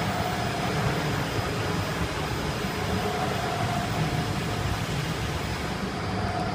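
Rotary egg tray forming machine running: the steady mechanical noise of the turning mould drum and its drive, with faint steady tones over it.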